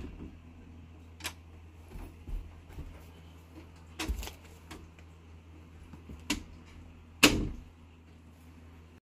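A wooden interior door being handled: four sharp knocks and a few softer bumps, the loudest about seven seconds in, over a steady low hum. The hum cuts off just before the end.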